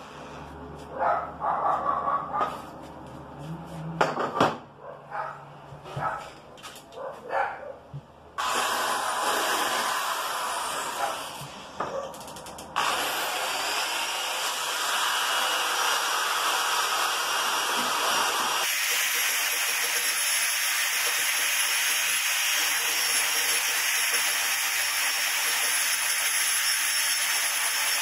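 Electric drill fitted with a conical abrasive stone, grinding down the wooden edge of a door to level it. It runs in short bursts with knocks for the first eight seconds or so, then runs continuously, with a steady high whine in the last part.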